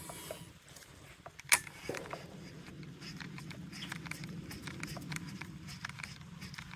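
Fishing reel being cranked to bring in a lure: a sharp click about one and a half seconds in, then a low steady whir with light ticking.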